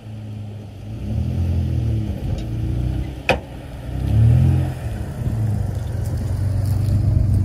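Nissan Frontier pickup's V6 engine pulling at low speed through a trail divot, its revs surging up and easing off twice, loudest about four seconds in. One sharp knock about three seconds in.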